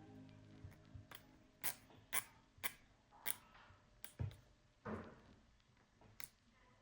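Faint, irregular sharp clicks and taps, about eight to ten of them, from small drone parts and tools being handled and fitted on a workbench.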